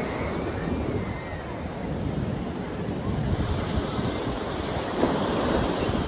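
Pacific Ocean surf, waves washing in with a steady rush that swells in the second half, and wind buffeting the microphone.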